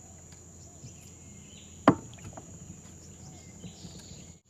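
Crickets drone steadily in the background. About two seconds in comes one sharp, loud knock against the boat, with a few faint clicks around it. The sound cuts out abruptly just before the end.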